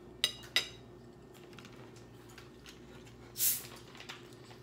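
A plastic bottle of carbonated Pepsi being opened: a short, sharp hiss of escaping gas about three and a half seconds in as the cap is twisted off. Two sharp clicks come shortly after the start.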